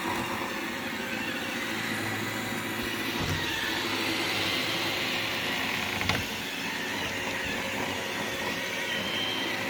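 iRobot Roomba 691 robot vacuum running on carpet: a steady whir of its motor and brushes, with one short knock about six seconds in.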